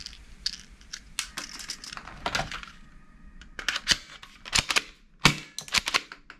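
Hard plastic toy guns clicking and knocking against one another as they are rummaged through in a box and one is lifted out: a string of irregular clicks that grows louder and busier in the second half.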